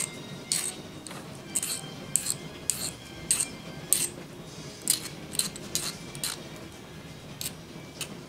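Needle file rasping in short strokes on a small cast-metal spring retainer held in the hand, deburring its edges. The strokes come about two a second, unevenly, with short pauses.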